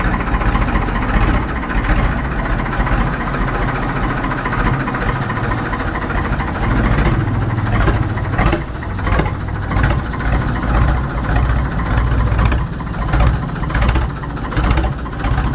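Ford 3600 tractor engine running while the tractor is driven slowly. Its loudness rises and falls unevenly in the second half.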